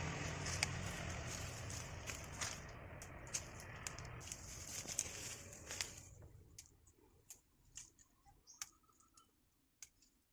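A steady background hum fades away about six seconds in. Light clicks and small rustles run throughout, sparser and quieter near the end.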